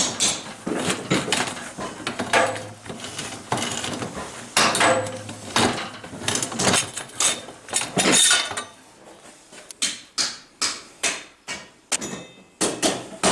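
Steel strip being rolled into a cone in a hand-cranked homemade slip roller, giving irregular metallic clanks and knocks with the steel now and then ringing briefly. In the last few seconds the knocks come more evenly, about two a second.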